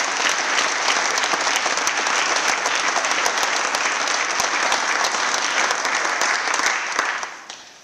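Loud applause from a room full of people, a dense steady clapping that dies away about seven seconds in.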